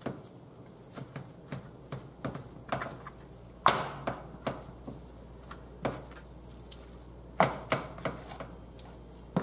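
Raw chicken thighs being turned and set down by hand in a metal baking pan: irregular soft knocks and taps against the pan, with a couple of louder knocks among them.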